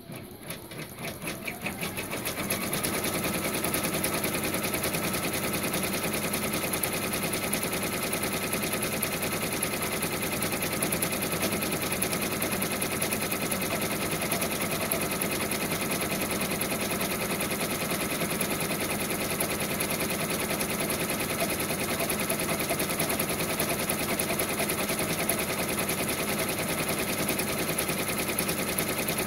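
Brother PR1050X ten-needle embroidery machine stitching lettering. It picks up speed over the first two to three seconds, then stitches at a steady, fast, even rate.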